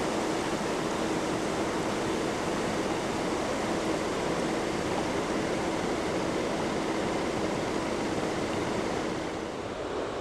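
A mountain river rushing through whitewater rapids: a steady, dense rush of water that eases slightly near the end.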